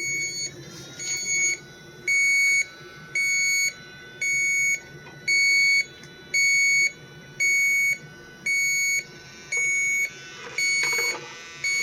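Handheld leak detector beeping steadily: a regular electronic beep about every 0.8 s, each lasting about half a second, while checking an empty system for a refrigerant leak. A faint rising whine sounds about half a second in.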